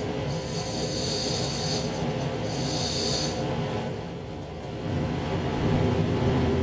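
2700 series diesel railcar running, its engine rumbling steadily, with two high-pitched squealing tones in the first three seconds; about five seconds in the engine note grows louder as it powers up.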